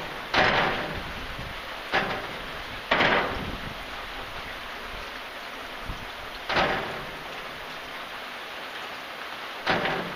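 Steady rain falling, with five sudden louder splashes or knocks that each fade within a second, spread irregularly through the rain.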